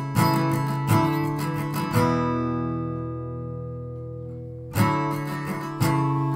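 Background music: an acoustic guitar strumming chords about once a second. In the middle one chord is left to ring and fade for a few seconds before the strumming picks up again.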